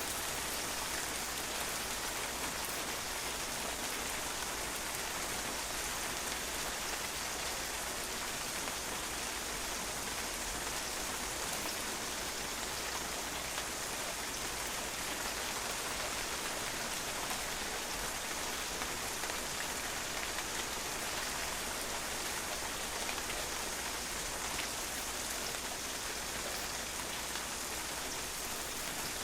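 Steady rain falling and drops pattering on a patio, an even hiss that holds at the same level without letting up.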